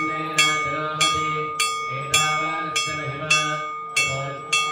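A metal temple bell rung steadily, about two strikes a second, each strike ringing on into the next, over low chanting voices.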